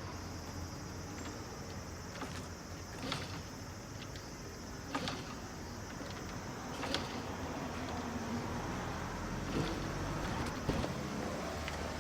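Honda Super Cub 90's single-cylinder four-stroke engine running steadily, with a few short sharp clicks.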